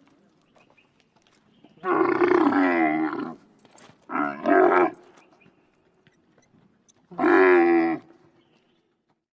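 Wild Bactrian camel giving three separate pitched calls: a long one about two seconds in, a shorter call in two parts about four seconds in, and a third near the end.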